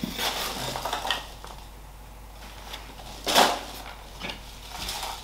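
Cardboard shipping box and its paper packing being handled: rustling and scraping through the first second, then a short, louder rustle a little over three seconds in.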